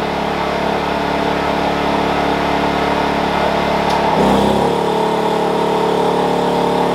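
Wen 56203i 2000-watt inverter generator's small four-stroke engine running steadily. About four seconds in it revs up and settles at a higher speed as a heat gun on high heat comes on as a load.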